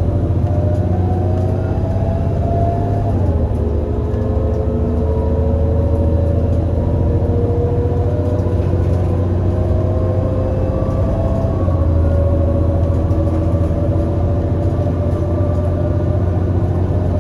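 Irisbus Citelis 18 GNC bus's IVECO Cursor 8 six-cylinder CNG engine pulling under acceleration with a deep rumble, its note climbing slowly between upshifts of the ZF Ecomat six-speed automatic gearbox. The pitch drops at an upshift about three seconds in and again about eleven and a half seconds in.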